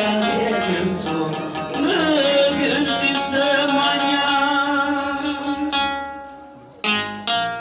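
Ethiopian Orthodox hymn (mezmur): a singer's voice over plucked-string accompaniment. The music fades down about six seconds in, then sharply plucked string notes start again about a second later.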